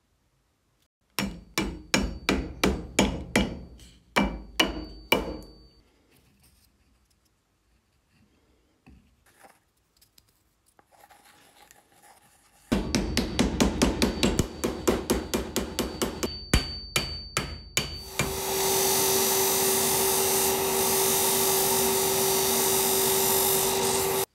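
Quick repeated taps of a wooden pad wrapped in electrolyte-soaked cotton dabbed onto a stencil on a steel axe head during 12-volt electro-etching, about four to six taps a second in two runs. About 18 s in, a bench polishing machine with a cloth buffing wheel takes over, running steadily with a hum.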